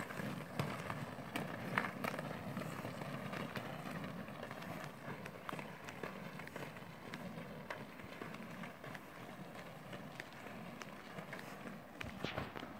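Inline skate wheels rolling on an asphalt path: a steady, gritty rumble that slowly fades, with scattered light clicks.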